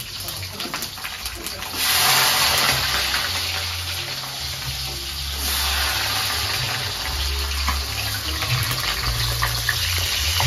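Loud, steady hiss like running water or hot oil, which jumps louder about two seconds in and again a little past five seconds.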